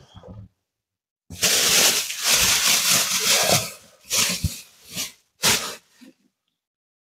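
Starter motor cranking the Peugeot 206's TU petrol engine without it catching: one long crank of about two and a half seconds, then three short bursts, on the first start attempt after its head gasket replacement.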